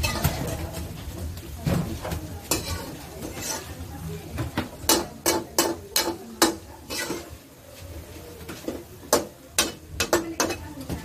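A metal spatula scraping and clinking against an aluminium wok as pork is stirred, over a low sizzle of frying. The sharp clinks come thickest from about halfway through.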